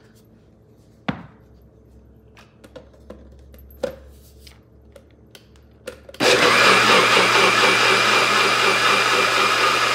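A few knocks and clicks as the Nutribullet cup with its blade lid is fitted onto the base. About six seconds in, the Nutribullet's motor starts and runs steadily, blending soaked Irish sea moss and water toward a smooth gel.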